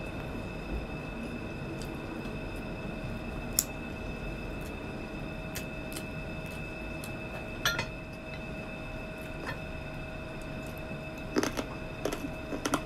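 Eating crispy pata (deep-fried pork leg) by hand: soft chewing with scattered sharp clicks of fingers and food against plates, a few of them louder, about three and a half, eight and eleven and a half seconds in. A steady high hum runs underneath.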